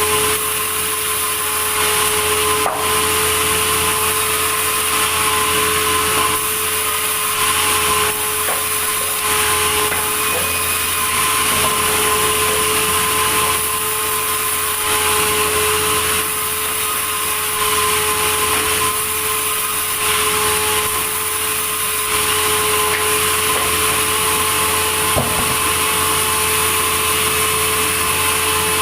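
Sawmill saw running steadily as it cuts wood: a continuous whine with a held tone.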